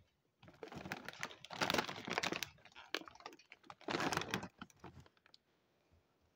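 Plastic dog-treat bags rustling and crinkling as they are handled and rummaged through, in two bursts: a longer one starting about half a second in and a shorter one about four seconds in.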